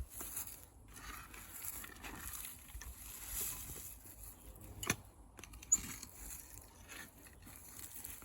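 Faint rustling and scraping of soil and potato plants as potatoes are dug up, with two short sharp knocks about five seconds in.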